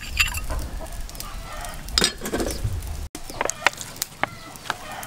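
Chickens clucking in short separate notes, with a metal spoon clinking and scraping against a ceramic saucer.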